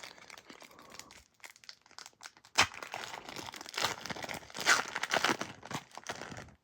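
Foil wrapper of a Pokémon TCG Crown Zenith booster pack crinkling and being torn open, faint at first and much louder from about two and a half seconds in.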